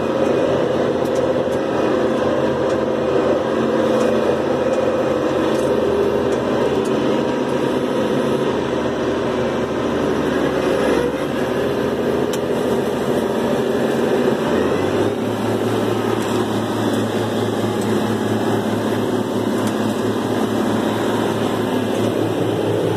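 Massey Ferguson 1135 tractor's six-cylinder diesel engine working steadily under load as heard inside its cab, driving a PTO forage chopper (Gehl 1275) cutting corn. The low engine hum steps up slightly in pitch about two-thirds of the way through.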